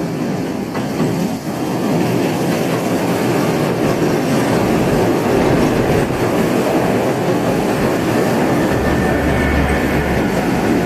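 Ōigawa Railway Ikawa Line train passing close by, its wheels clattering along the track.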